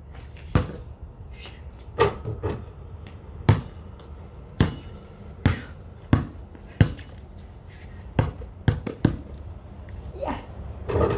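A basketball bouncing on a concrete court: about a dozen sharp thuds at uneven intervals.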